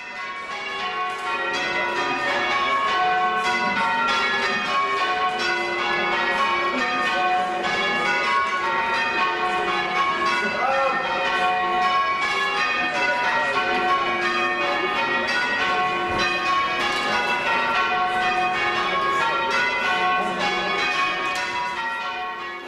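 Church tower bells being rung full-circle in changes by ringers on ropes, the bells striking one after another in a steady, continuous pattern. The tower holds a ring of eight bells.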